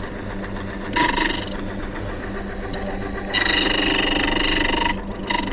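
Silca Lance key-cutting machine running, its cutter cutting the bullet ward groove in a key blank. A steady motor hum, with the cutting getting louder and higher-pitched briefly about a second in, and again for about a second and a half from a little past halfway.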